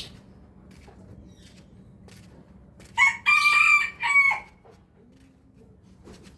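A rooster crowing once, about three seconds in, a loud crow lasting about a second and a half. A brief high chirp sounds right at the start.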